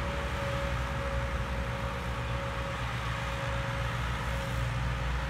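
Massey Ferguson MF 260 Turbo tractor's diesel engine pulling a heavily loaded log trolley, running steadily under load.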